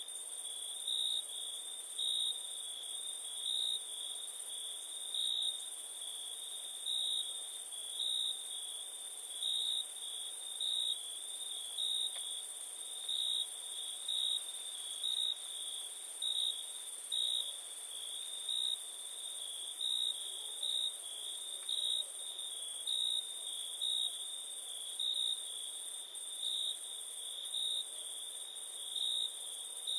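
Crickets trilling steadily in a high chorus, one trill swelling louder about once a second, with a fainter, higher steady trill above it.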